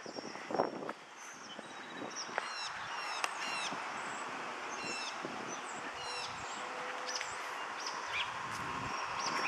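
Small songbirds chirping, with quick runs of repeated sweeping notes about two and a half seconds in and again around five seconds in, over a steady outdoor background hiss.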